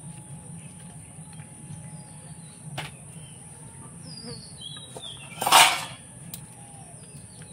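Quiet rural background of faint birds chirping over a steady high hiss and low hum, with a brief loud burst of noise about five and a half seconds in.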